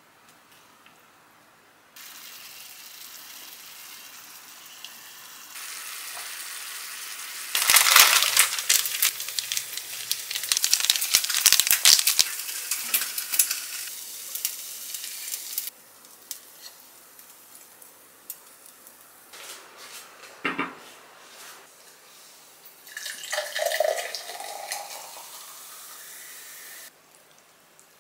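Sauce sizzling in a frying pan as rice balls grill in it: a steady hiss that builds into loud, dense crackling and spitting for several seconds, then settles back to a quieter hiss. A single sharp knock comes about two-thirds of the way in, and a short clatter follows a few seconds later.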